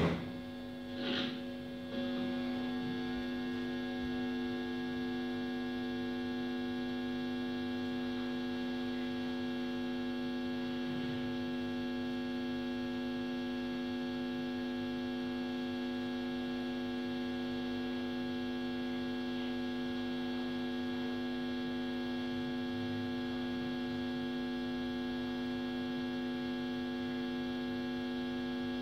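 Electric guitar left against its amplifier, droning in one steady held tone with many overtones. The strings are knocked twice in the first two seconds before the drone settles.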